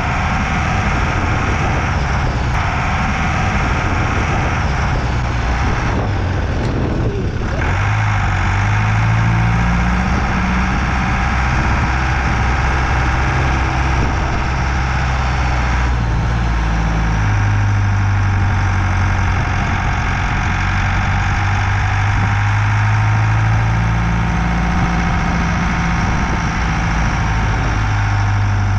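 A vehicle engine running while driving, its pitch rising and falling as the speed changes, over a steady rushing noise.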